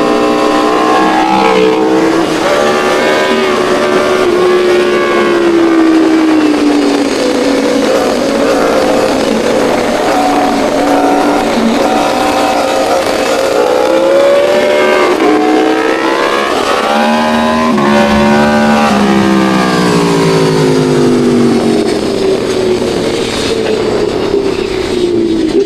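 Sport motorcycle engines, a Yamaha R9 and an Aprilia Tuono V4, running hard at high revs. The pitch climbs and drops again and again as they accelerate and shift gears, with a sharp fall and re-climb past the middle.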